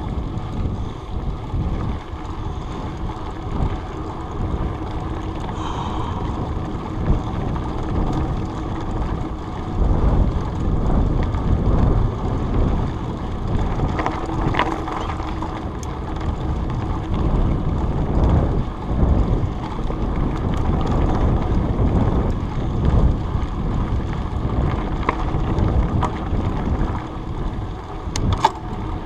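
Mountain bike ridden over a dirt trail, heard from a chest-mounted GoPro: an uneven rumble of wind buffeting the microphone and tyres on the ground, with scattered clicks and rattles from the bike.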